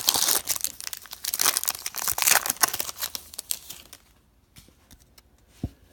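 A trading card pack's wrapper crinkling and tearing as it is ripped open, a dense crackle of clicks that stops about four seconds in, followed by a few faint ticks and a soft thump.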